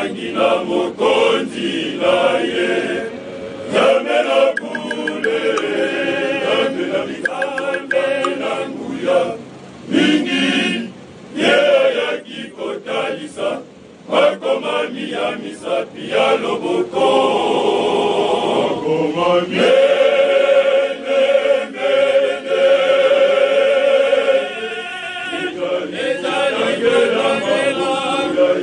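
Men's choir singing in harmony under a conductor, the voices holding and changing chords, with a few short breaks between phrases about halfway through.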